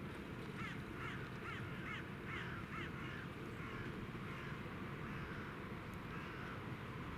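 A crow cawing, about six harsh caws in quick succession early on and fainter calls afterwards, over a steady low background rumble.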